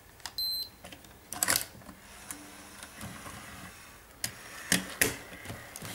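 A short high electronic beep from a Sony Handycam CCD-FX730VE Video8 camcorder about half a second in, the warning beep it gives when something is wrong. Several sharp plastic clicks and knocks follow as the camcorder is handled.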